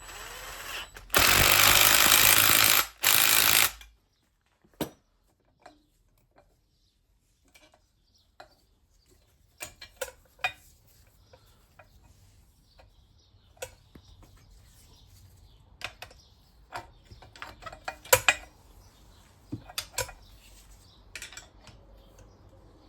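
A power tool runs in two loud bursts about a second in, fastening the bolts of a turbocharger housing onto its new core. Scattered light metallic clicks and clinks of tools and parts follow.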